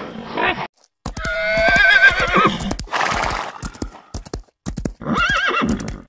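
A horse whinnies twice, a long wavering call about a second in and a shorter one near five seconds, over a run of hoofbeats.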